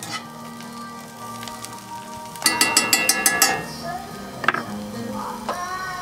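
Chopped leafy greens sautéing in a cast-iron skillet on a camp stove, sizzling under background music. About halfway through, a quick run of sharp clicks lasts about a second.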